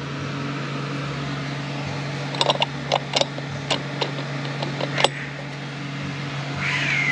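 Light metal clicks as a sun gear is slid down the output shaft and seated in a transmission's planetary gearset: a cluster about two and a half to three and a half seconds in and a single sharper click about five seconds in, over a steady low hum.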